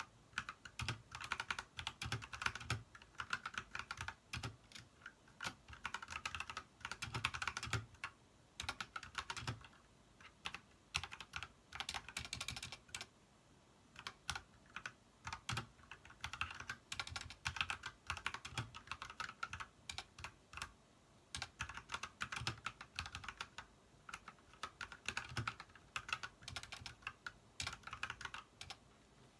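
Typing on an Ajazz mechanical keyboard fitted with cherry blossom keycaps: fast runs of key clicks in bursts of a second or two, broken by brief pauses.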